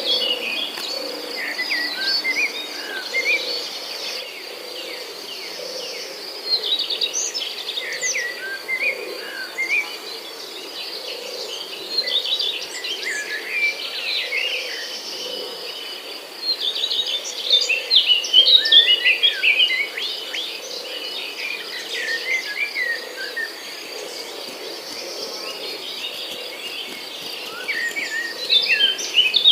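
Many small birds chirping over a steady, fast-pulsing insect trill, with a lower call repeating evenly underneath.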